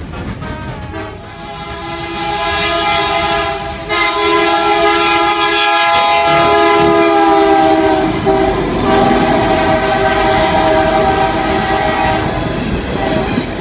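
Diesel freight locomotive's air horn sounding a long chord of several steady notes, with a second long blast beginning about eight seconds in: the grade-crossing warning as the train passes. Under it runs the train's steady rumble as the cars roll by.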